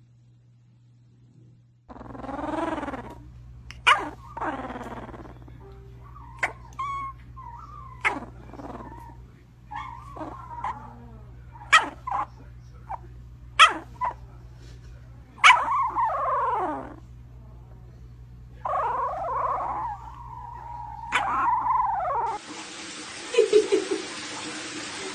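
A puppy whining and yipping: a string of whining calls that slide in pitch, broken by short sharp yips. About 22 s in this gives way to a steady rush of water running in a bathtub.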